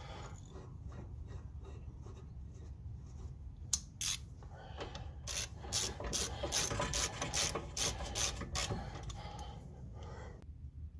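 A hand tool scraping back and forth on metal in repeated rasping strokes, faint at first. A sharp click comes a little under four seconds in, then the strokes get louder and run at about three a second for roughly five seconds.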